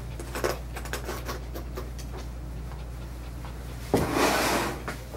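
Grooming tools being handled and set out: a few light clicks and knocks, then a short rustling swish about four seconds in, over a steady low hum.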